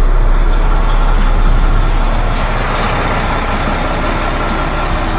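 Mack truck's MP8 diesel engine, a 13-litre inline-six, idling steadily after being started without its instrument cluster fitted.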